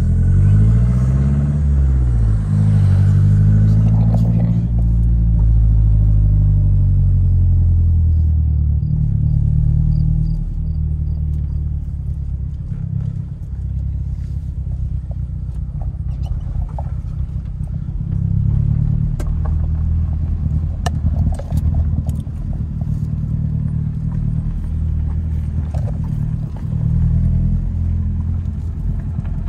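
Mazda car's engine and road noise heard from inside the cabin while driving slowly. The engine note rises and falls over the first several seconds, then settles into a steady low rumble with scattered sharp clicks.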